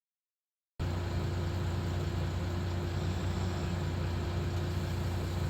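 Complete silence for about the first second, then a heavy truck's engine idling with a steady low hum.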